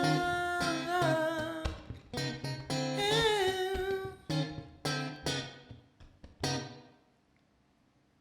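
Guitar and a singer's voice: a held sung note, then a short wordless vocal line over plucked guitar chords, with a last chord ringing out and fading away about seven seconds in as the song ends.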